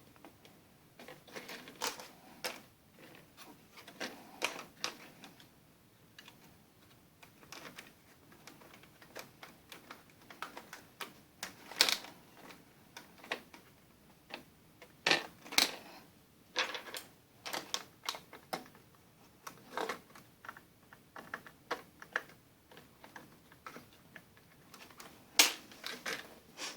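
Irregular clicks and taps of hands handling a partly disassembled HP laptop, plastic parts and connectors knocking, with a few sharper clicks standing out.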